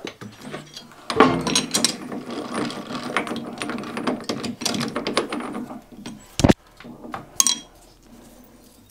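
Metal lathe's three-jaw chuck turned by hand and its jaws wound in on a bronze bar: a run of rattling, clicking metal-on-metal mechanism noise, with one sharp metal knock about two-thirds of the way through.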